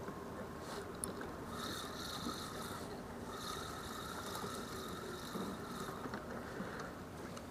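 Spinning fishing reel being cranked in two spells of a few seconds each, a whirring over steady outdoor background noise, as line is wound in.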